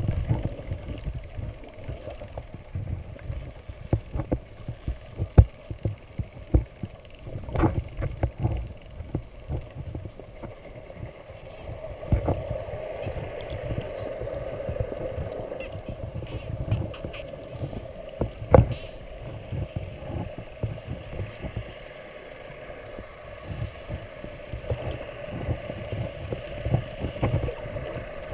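Underwater sound of spinner dolphins whistling: many short, high whistles sliding up and down, thickest in the middle stretch. Beneath them run a steady low hum and rumble, with scattered sharp clicks and knocks, the loudest about five seconds in and about eighteen seconds in.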